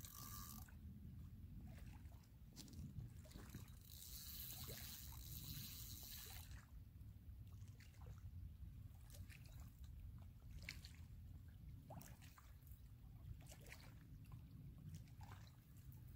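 Faint lake water lapping and trickling against shoreline rocks over a low steady rumble, with a stretch of soft hiss about four seconds in.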